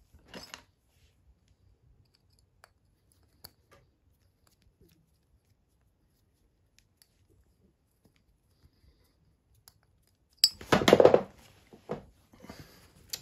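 Small metal crossbow parts and bolts handled on a wooden workbench, with faint scattered clicks, then a loud clatter about ten and a half seconds in as a part is dropped, followed by a few smaller knocks.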